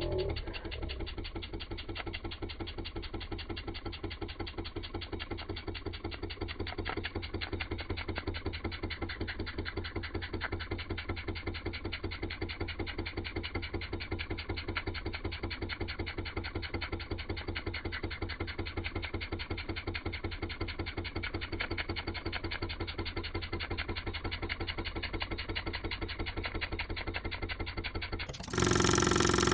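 Model stationary steam engine running steadily, its flywheel spinning fast, giving a rapid, even mechanical beat. About a second before the end it cuts off abruptly to a louder, fuller sound.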